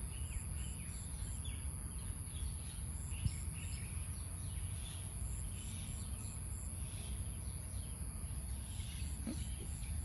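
Outdoor ambience: scattered bird chirps and a steady high-pitched insect drone with short repeated high pips, over a low rumble. A single brief tap comes about three seconds in.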